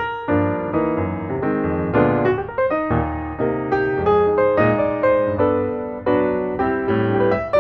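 Background piano music, with notes struck and fading in a steady rhythm.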